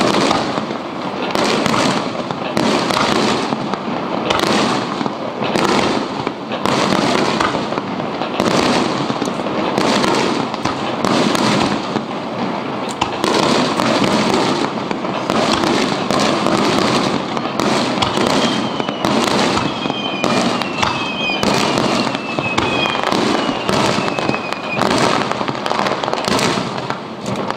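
Fireworks display: aerial shells bursting in a steady barrage, more than one boom a second, with crackling between them. A few short falling whistles sound about two-thirds of the way through.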